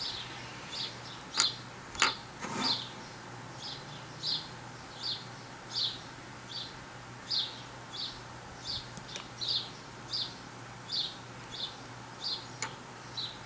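A bird chirping over and over: short high chirps, about two a second. A few sharp clicks come in the first three seconds.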